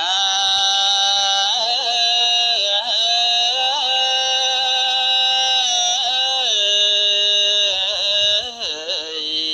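A young Buddhist monk's high voice chanting melodically into a microphone, holding long steady notes joined by quick ornamental turns in pitch.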